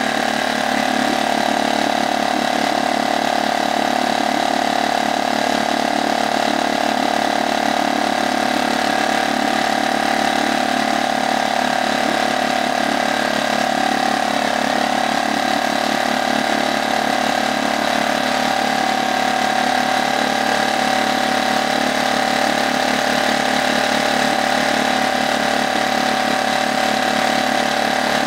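Brand-new HDX F 2.6 single-cylinder four-stroke outboard motor running steadily at a constant speed in a test barrel, its propeller churning the water, on the engine's second start.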